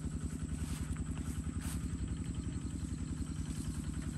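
Small engine idling steadily, with a fast, even low pulse.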